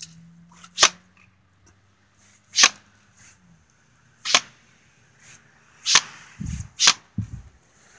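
Pump-action plastic water blaster being pumped and fired: five short, sharp spurts spread over several seconds, with two dull low thumps near the end.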